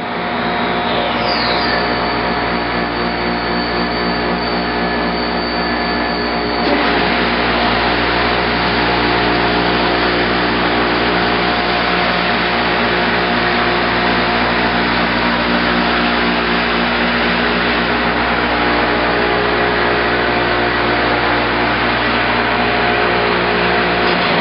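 Timesavers Vision orbital twin-pad and rotary brush sanding machine running: a steady hum of motors and blowers. A high whine glides down about a second in and holds, then stops about seven seconds in, when the noise gets louder and stays at that level.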